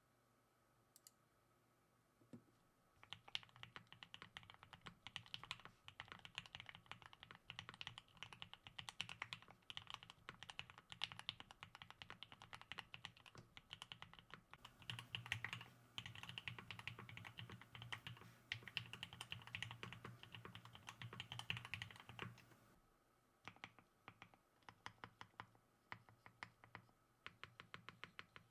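Typing on a custom mechanical keyboard with Gateron CJ linear switches, a polycarbonate plate and GMK keycaps. Fast, continuous keystrokes start about two seconds in, then thin out near the end to separate single presses.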